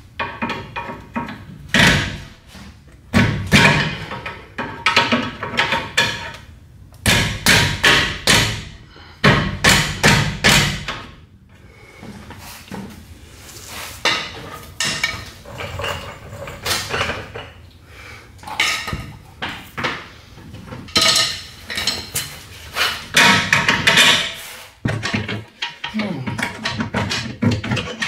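Irregular series of hammer blows and metal clanks on car suspension parts, coming in clusters with short pauses between them.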